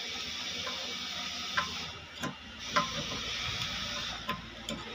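A few short, sharp metal clicks from a screwdriver tightening the screws on the lower roller bracket of a chain-stitch sewing machine, and from the bracket being handled. A steady hiss runs underneath.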